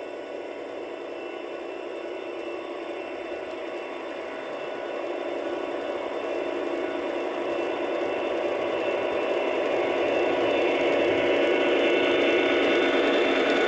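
A pair of Aristocraft CSX GP-40 large-scale model diesel locomotives running by, their QSI sound decoders playing diesel engine sound through the onboard speakers, along with the rolling of wheels on the track. The sound grows steadily louder as they approach and is loudest near the end.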